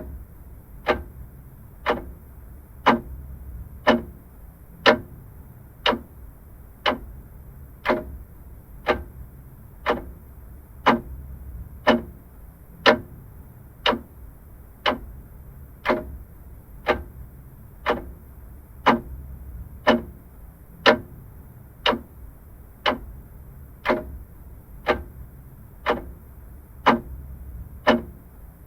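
Vintage clock ticking steadily at about one tick a second, over a faint low hum.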